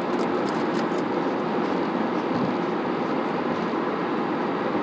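Steady rushing background noise, with a few faint clicks in the first second.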